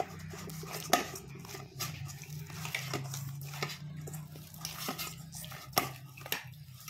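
Kitchen bowls and utensils being handled and set down, with a few sharp clicks and knocks over a low steady hum.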